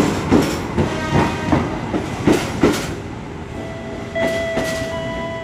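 Passenger train passing close by and pulling out, its wheels clicking over the rail joints in pairs about once a second over a steady rumble. The clicking dies away about three seconds in as the last carriage passes, and a few thin steady tones start soon after.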